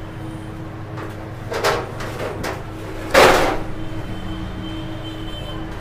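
Shop background sounds: a steady low hum, with a brief knock or scrape a little under two seconds in and a louder clatter just after three seconds.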